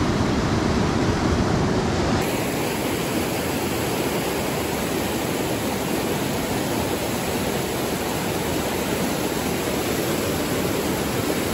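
Mountain stream water rushing steadily over rocks. The sound changes abruptly about two seconds in, with less low rumble afterwards.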